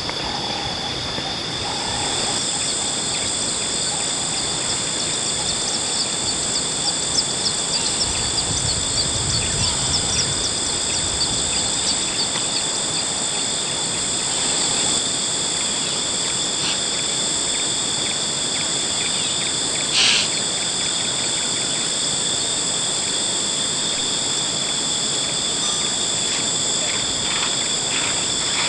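A steady, high-pitched insect chorus with several piercing tones held together. A run of quick chirps comes between about 6 and 12 seconds in, and a single sharp click about 20 seconds in.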